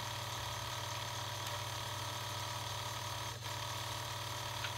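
Sinclair QL Microdrive running, its small motor spinning the endless-loop tape cartridge with a steady drone while it reads the directory. The drive sounds horrible, which the owner puts down to the machine's age.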